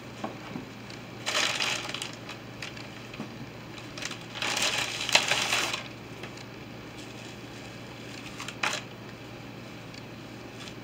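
Two bursts of crinkly rustling as a stack of flour tortillas is handled and one is peeled off, with a short knock a little before the end.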